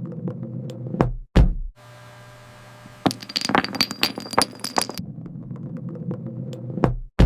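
Sound effects of a heavy ball rolling with a low rumble, then two hard thuds about a second in as it strikes the cubes. From about three to five seconds comes a rapid clatter of cubes toppling one against the next like dominoes. The rolling rumble comes back, and another heavy thud lands at the very end.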